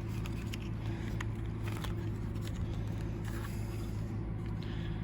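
A steady low mechanical hum, with faint scattered clicks and taps of small metal door-handle and lock parts being handled.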